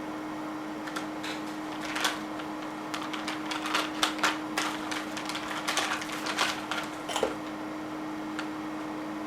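Small parts and packaging being handled by hand: a quick, irregular flurry of clicks and crinkles over about six seconds, stopping near the end, over a steady low hum.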